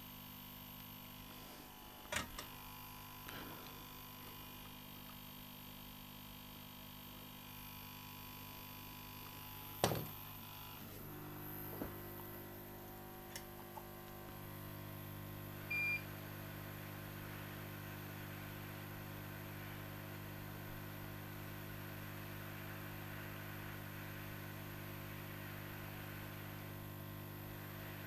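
Steady electrical hum and faint fan hiss from a soldering bench, with a few soft clicks and one short high electronic beep about sixteen seconds in. The hiss grows slightly louder from about fourteen seconds in.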